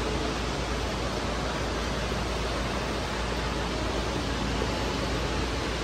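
A steady, even hiss of room noise with no distinct events.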